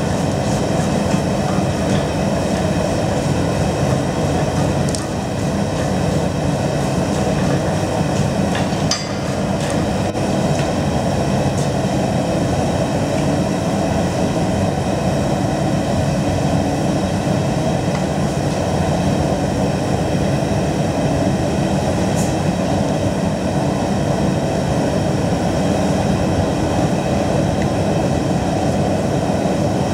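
Forge fire burning with a loud, steady rushing noise, with a few sharp metallic clicks scattered through it.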